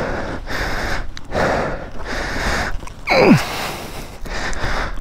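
A person breathing hard and fast close to the microphone, gasping from exertion, with a short sound falling sharply in pitch about three seconds in.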